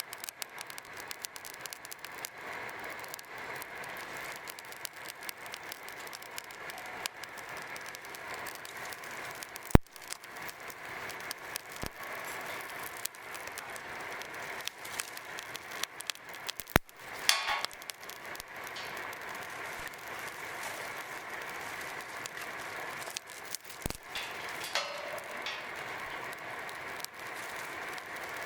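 Outdoor campsite ambience: a steady, even hiss with many scattered light clicks and rattles, and a few sharp knocks about ten, seventeen and twenty-four seconds in.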